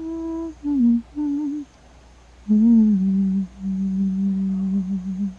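A person humming a slow, low lullaby in a few held notes, with a short pause in the middle and a long final note.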